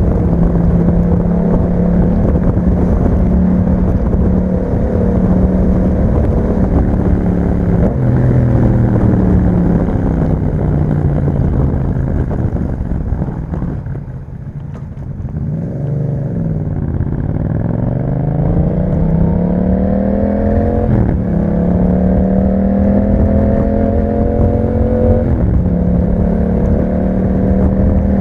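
2021 Yamaha MT-07's parallel-twin engine through an Akrapovic exhaust while riding: it holds a steady pace, then backs off and slows around the middle, then accelerates with the pitch rising, shifting up about three quarters of the way through and again near the end.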